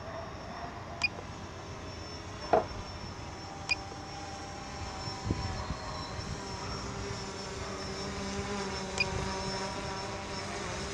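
A steady motor hum with several held tones, broken by a few short sharp clicks and one dull knock about two and a half seconds in.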